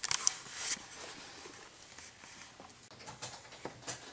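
Rustling and scratching on cardboard boxes: a burst of rustling in the first second, then a few short scratches near the end.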